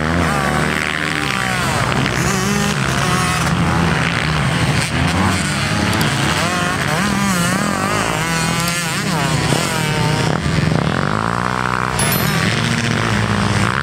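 Several motocross bikes ride through deep sand, their engines revving up and down at once and overlapping.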